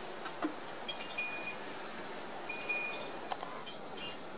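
Wind chime tinkling: light metallic tones ringing out a few at a time at irregular intervals, some held for about half a second.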